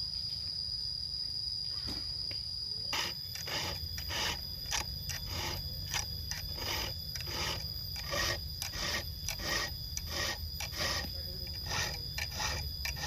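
A quick, uneven series of rasping strokes, a few a second, starting about three seconds in, like a hand tool being worked against metal or wood, over a steady high insect drone.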